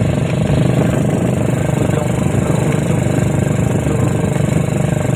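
ATV engine running steadily with a fast, even pulse.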